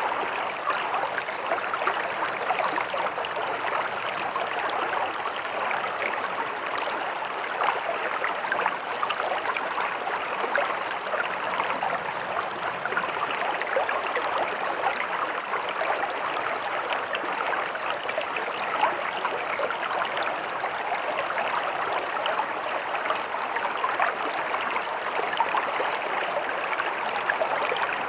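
A shallow stream running steadily, water splashing and burbling over stones in a continuous rush.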